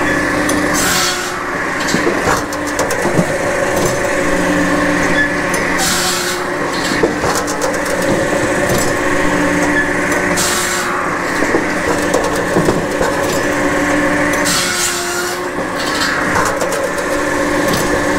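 Japa 700 circular-saw firewood processor, PTO-driven by an electric three-phase power pack, running through its cut-and-split cycle on sycamore logs. A steady machine drone carries a pitched hum that comes and goes about every four seconds, with short bursts of hiss and scattered knocks of wood.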